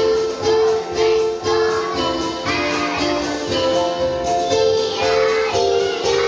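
Young children singing along to instrumental music, held notes in a steady rhythm.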